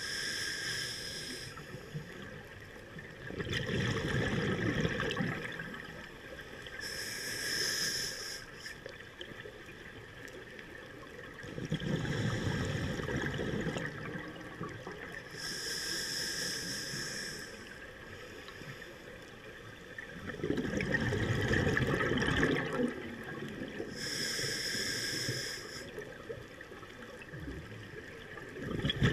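Scuba diver breathing through a regulator underwater: a short hissing inhale, then a longer bubbling exhale, repeating about every eight seconds for four breaths.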